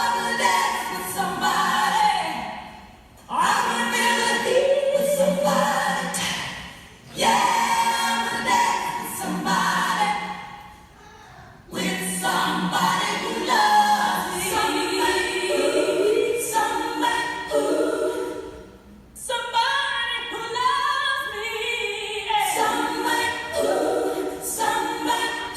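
A cappella vocal group singing in several-second phrases with short breaks between them.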